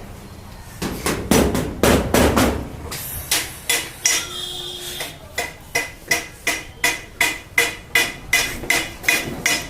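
Hammer striking steel almirah sheet metal, with a short metallic ring after each blow. The blows come quickly and unevenly at first, then settle about halfway through into a steady rhythm of about three strikes a second.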